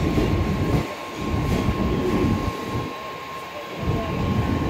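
Running noise of a moving train heard from on board: a low rumble and rattle that eases off briefly twice, with a faint steady whine throughout.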